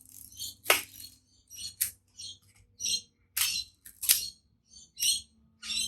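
Voigtlander Bestmatic 35mm camera's mechanism being worked by hand: a run of short scratchy clicks and ratcheting sounds, with sharper clicks at about 0.7, 1.9 and 4.1 seconds in. Right after, the owner judges that the mechanism doesn't seem to be working well.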